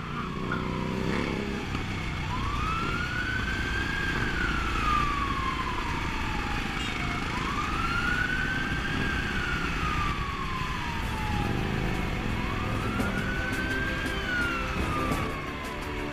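A siren wailing slowly, three rise-and-fall cycles, each climbing quickly and then sliding down over a few seconds, over the steady low rumble of motorcycle engines.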